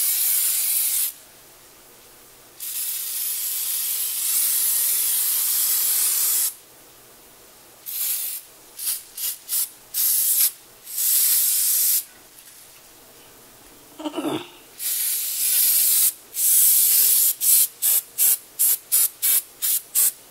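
Aerosol non-stick cooking spray hissing onto chicken drumsticks in a mesh air fryer basket: long sprays of a few seconds each, then shorter bursts, and near the end a run of quick short spurts, about three a second.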